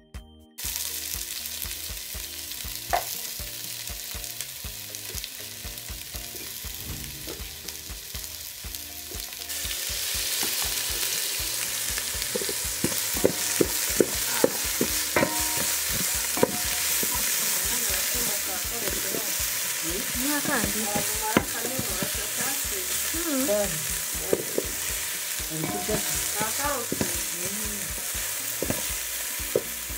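Sliced red onions frying in hot oil in an aluminium pot: a steady sizzle that grows louder about a third of the way in. A spoon stirs them and knocks against the pot several times around the middle.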